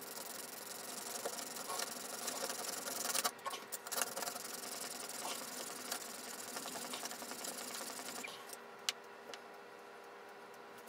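An old steel chisel in an MPower FastTrack Mk2 guide being pushed back and forth over a coarse 100-grit abrasive plate to regrind its gouged bevel: a rhythmic gritty scraping with a short pause a little after three seconds in. The scraping stops about eight seconds in, followed by a single click.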